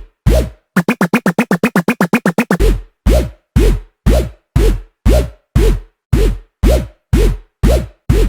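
Electronic dance track: a heavy booming drum hit, each falling in pitch, repeats just under twice a second. About a second in, the beat breaks into a fast stuttering roll of rapid hits for roughly two seconds, then the steady beat returns.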